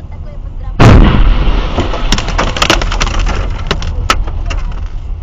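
An explosion: one sudden, very loud blast about a second in, heard from inside a car, followed by a few seconds of fading noise broken by scattered sharp cracks and clicks.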